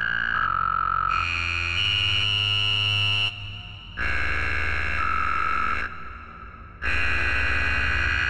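Synthesizer chords from the Planetarium granular instrument for UVI Falcon: sustained tones over a deep bass that step to new pitches every second or so, broken twice by brief drops near 3 and 6 seconds in.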